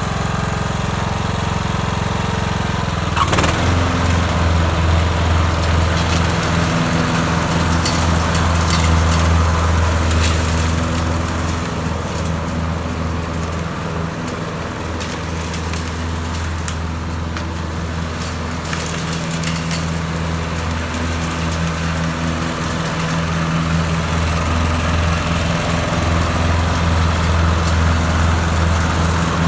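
Troy-Bilt riding lawnmower engine running steadily. A click comes about three seconds in, after which the engine runs louder; it eases off in the middle and picks up again near the end.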